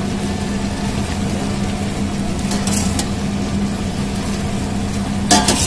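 Hot water poured from a steel pot into a pan of simmering curry, over a steady low hum. A sharp metal clink comes near the end.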